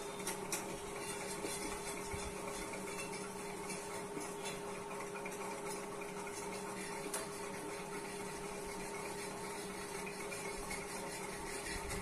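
Room tone: a steady electrical or fan-like hum with a few faint light ticks.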